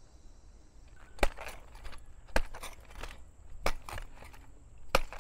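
A digging tool striking into the ground four times, about a second and a quarter apart, as a hole is dug for planting a tree.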